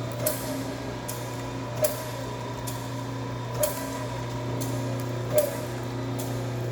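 Small dumpling-making machine running with a steady hum and a sharp clack repeating about every two seconds, with fainter knocks between.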